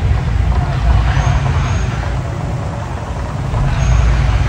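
Outdoor volcano show erupting: a deep, uneven rumble with hissing swells of fire jets, the second and louder one near the end as a large fireball goes up. Street traffic and crowd chatter are mixed in.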